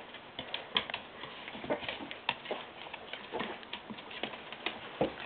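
Irregular light clicks and scuffles of two Norfolk terriers' claws and paws on a vinyl floor as they play-wrestle, with no growls or whimpers.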